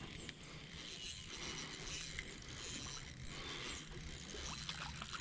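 Daiwa Regal 1000 spinning reel being cranked on an ultralight rod, a soft, steady mechanical whir of its gears as the lure is retrieved.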